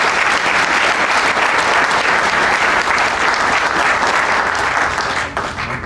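A large audience applauding, many hands clapping at once, the clapping tailing off near the end.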